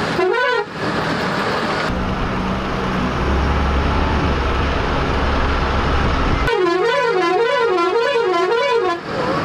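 Bus horn sounding a warbling tone that swings up and down about twice a second, heard briefly at the start and again for the last few seconds. In between comes the steady low rumble and rattle of the bus driving on a rough mountain road.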